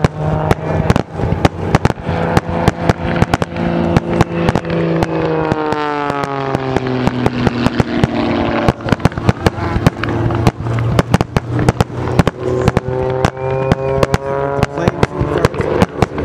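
Aerial fireworks going off in a rapid, unbroken string of bangs and crackles. Under them is a steady pitched hum, and a pitched tone falls in pitch about halfway through.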